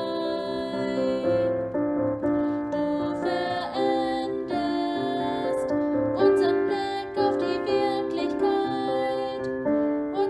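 Gentle piano music with a sung melody: a hymn, accompanied on piano.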